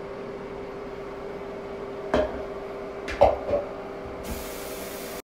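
Steady hum in a small bathroom, with a few knocks as a hand works the sink faucet. A high hiss starts about four seconds in and cuts off sharply.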